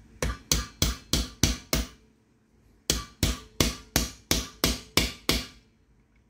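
Hammer tapping on a socket used as a driver to seat a new bearing in a circular saw: six sharp metallic strikes, a pause of about a second, then nine more, about three a second.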